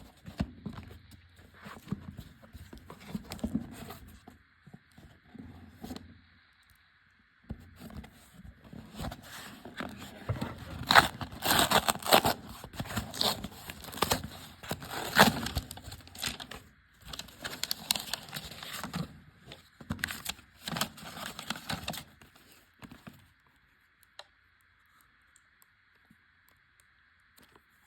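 Plastic courier packaging being torn open and crinkled by hand, with irregular crackling and rustling that is loudest midway and stops about 23 seconds in.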